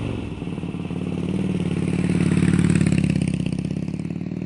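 Motorcycle engine running, growing louder to a peak in the middle and easing off near the end.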